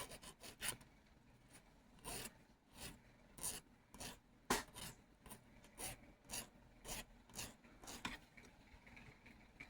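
Hand file rasping on the cut edge of a metal necklace clasp, in faint short strokes about two a second with brief pauses, smoothing off a sharp edge left where a knob was cut away.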